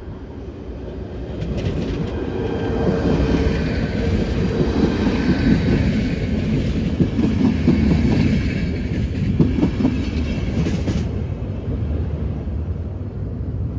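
ČD CityElefant (class 471) double-deck electric multiple unit passing close by, with wheels rumbling and clattering on the rails and a high steady whine. The sound builds as the train nears. About eleven seconds in the whine drops away, leaving a lower rumble.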